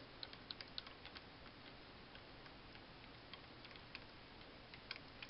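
Faint, irregular light clicks and ticks from the hand-cranked X-axis feed of a benchtop milling machine as the table is moved over, bunched in the first second and again near the end.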